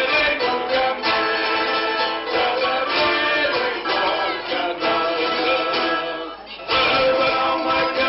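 Traditional Balearic folk dance music led by plucked string instruments, with a steady rhythmic pulse and a brief dip about six and a half seconds in.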